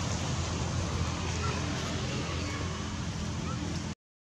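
Steady outdoor background noise, an even hiss with no clear calls in it, which cuts out abruptly near the end.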